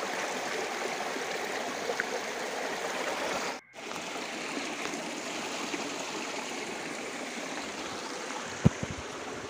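Stream water flowing and splashing steadily, broken by a brief dropout a little over three seconds in. One short thump sounds near the end.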